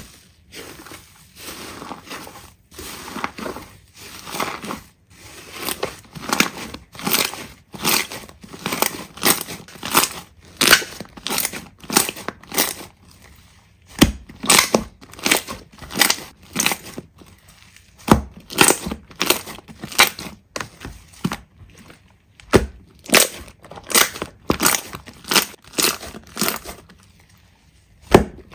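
Slime being squeezed and pressed by hand, crackling in repeated bursts about two a second, with a few short pauses.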